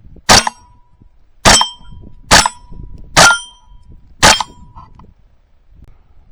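.22 rimfire gunshots, five in a row about a second apart, each followed by the ringing of a struck steel target: five hits.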